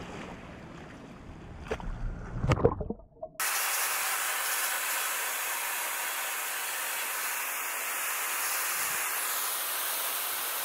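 Water sloshing and splashing as an Asian elephant moves through a pool, with a few sharp splashes. About three seconds in it cuts suddenly to the steady hiss of a strong water jet spraying over an elephant lying in mud.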